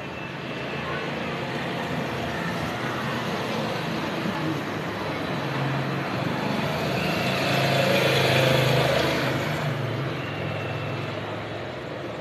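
A car driving past, its engine and tyre noise growing louder to a peak about eight seconds in, then fading away.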